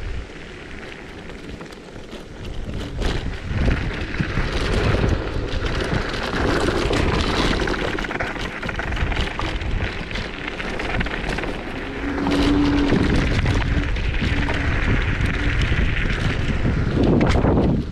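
Zero 10X electric scooter riding over a loose gravel dirt track: the tyres crunch and rattle over the stones while wind buffets the microphone. A short steady tone sounds about twelve seconds in.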